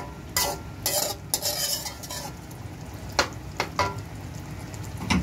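A slotted metal spoon scraping and clinking against a metal pot as chicken pieces are stirred in thick masala, over steady sizzling. A series of sharp scrapes comes at uneven intervals, while the chicken fries until its own water cooks off.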